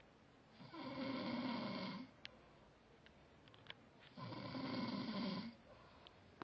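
A man snoring in his sleep: two long snores, each about a second and a half, roughly three and a half seconds apart.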